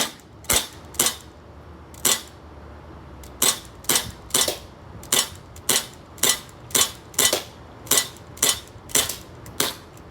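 Tac Force 6XP CO2 blowback airsoft pistol firing about fifteen sharp shots, each a quick crack of the CO2 blowback. Three come spaced out, then a steady string of about two a second empties the magazine.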